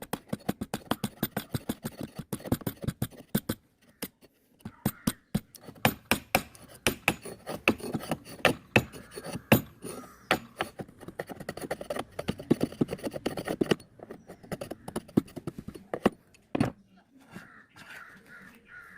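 Chisel being driven into wood with quick repeated blows, about five a second at its busiest, paring away waste wood to shape a 45° mitre joint. The blows pause briefly twice and thin out to a few lighter taps near the end.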